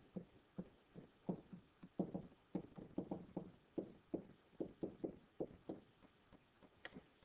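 Pen tip tapping and scraping on a writing surface as words are handwritten: a string of faint, short knocks, about three a second, at uneven spacing.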